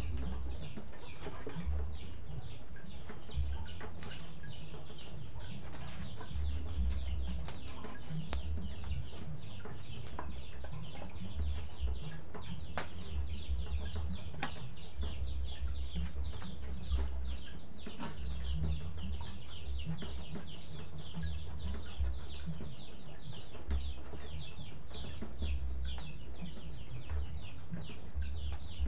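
Chickens: a continuous stream of rapid, high, downward-sliding peeps, like chicks calling, without a pause. A few sharp clicks of a knife on a wooden cutting board and an intermittent low rumble lie underneath.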